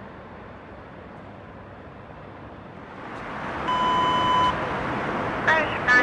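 Faint steady outdoor noise, then about three seconds in a louder steady noise and a single electronic beep lasting under a second. Short chirps follow near the end.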